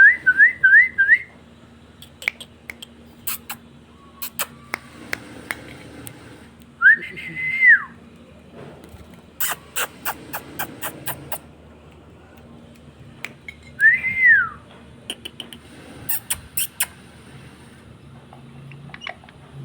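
Parrot whistling: a quick run of about five short rising whistles at the start, then two longer single whistles that rise and fall, about 7 and 14 seconds in. Scattered sharp clicks come between the whistles.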